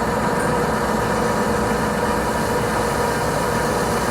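Metal lathe running steadily at about 450 RPM, an even motor and gearbox hum with a steady mid-pitched tone, as it takes a very light cut.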